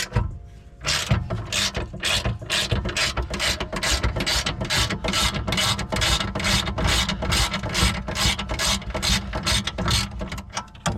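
Hand ratchet wrench clicking in quick, even strokes, about three a second, turning a 17 mm strut bolt; the clicking starts about a second in.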